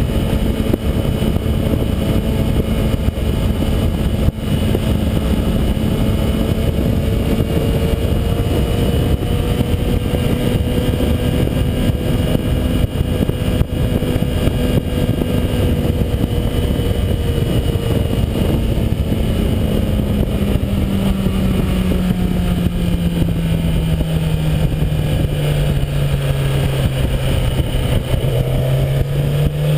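2011 Kawasaki ZX-10R's stock inline-four engine running at steady road revs under heavy wind noise. The engine note falls in pitch through the second half as the bike slows, then lifts slightly near the end.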